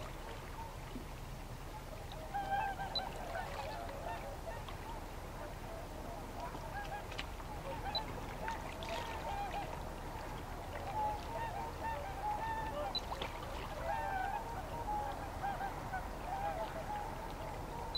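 A flock of waterfowl calling: many short, overlapping calls at a middle pitch, going on without a break.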